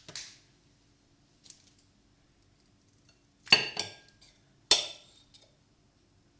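Kitchenware clinking: two sharp knocks with a brief ring, a little over a second apart, after a soft rustle at the start.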